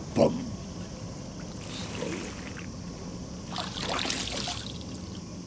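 Water splashing as hands scoop water out of a small inflatable paddling pool and dash it over the face, strongest around four seconds in. A short, sharp sound just after the start is the loudest moment.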